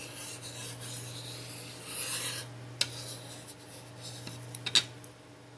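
Scratchy rubbing as glue is applied along a phone's frame, loudest about two seconds in, followed by two or three light clicks, over a steady low hum.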